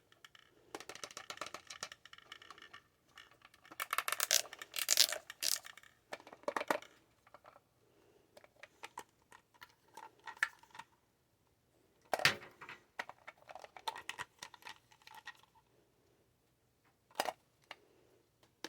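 Small plastic parts of a miniature battery-operated toy washing machine being handled: irregular clicks, taps and rattling scrapes, with a cluster of louder clatters a few seconds in and a sharp knock about twelve seconds in.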